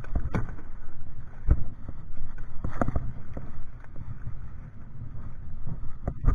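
Knocks and bumps on the hollow plastic hull of a small boat as fishing line and a handline spool are handled inside it, over a low wind rumble on the microphone; four sharper knocks stand out among smaller irregular taps.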